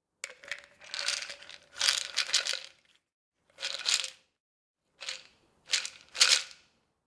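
Pills rattling inside a pill bottle, in several short bursts of dense clicking with pauses between.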